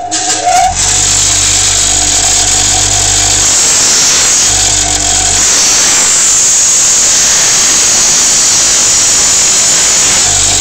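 Power tool grinding a steel hacksaw blade into a lock-pick shape: a loud, steady grinding hiss that starts about half a second in, with a low hum that drops out and returns in the middle.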